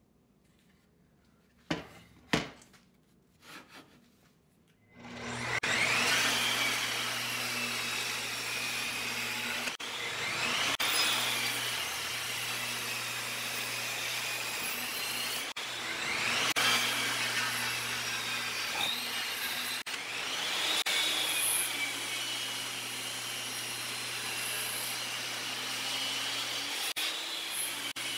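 Table saw cutting walnut blocks: the motor runs steadily while its high whine rises and falls every few seconds as each cut is made. A few knocks come before the saw starts, about five seconds in.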